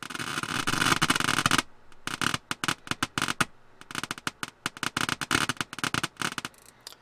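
Crackling and popping static from a Marantz 2500 receiver's AM tuner: a solid burst for about the first second and a half, then irregular crackles and short bursts. This noise is all the AM section puts out now that it has failed, and the owner suspects noisy old transistors.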